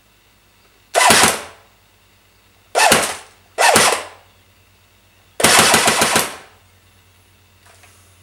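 Electric airsoft gun (AEG), a customised Steyr AUG-style replica, firing four short automatic bursts, the last and longest lasting about a second.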